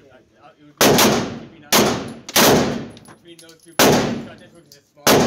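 Five 9mm pistol shots from an Arex Rex Delta, each ringing out in the echo of an indoor range. Three come in quick succession, then after a longer pause about a second and a half, two more follow.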